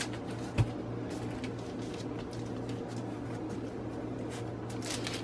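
A soft thump as a lump of dough is set down on parchment paper on a counter, then faint rustling of the paper as hands pat and press the dough flat, over a steady low hum.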